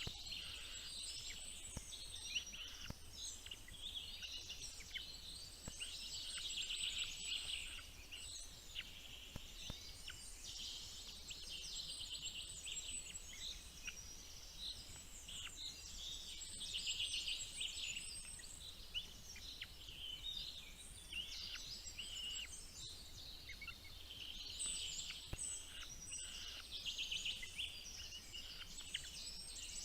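Bird chicks cheeping, a dense, high-pitched chatter that swells into louder bouts several times, typical of nestlings begging for food.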